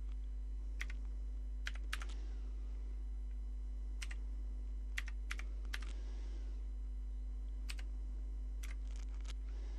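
Keys of a Commodore VIC-20 keyboard being pressed one at a time: about ten separate clicks at an uneven pace, with a steady low hum underneath.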